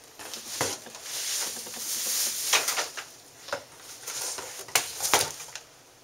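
Clear plastic bag and crinkled paper packing rustling and crinkling as a vacuum cleaner is lifted out of its cardboard box, with several sharper crackles.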